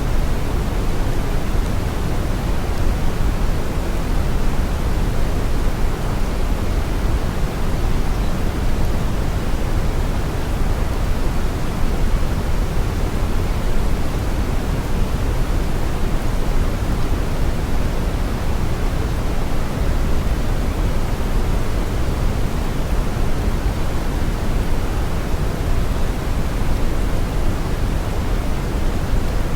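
Steady brown noise: a deep, even rush, strongest in the low end, with no tones and no changes.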